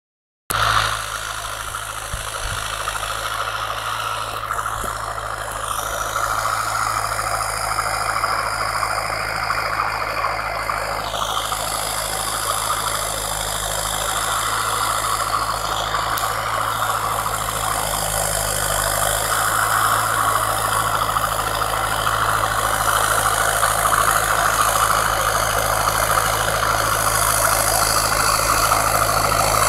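Turbocharged, intercooled diesel engine of a Massey Ferguson 4275 tractor running steadily under load while it pulls a soil-working implement through the field, growing gradually louder as it approaches.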